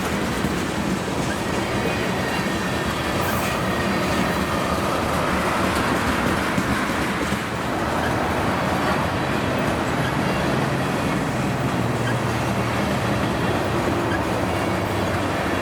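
Freight train rolling past at steady speed: a continuous rumble and clatter of steel wheels on the rails.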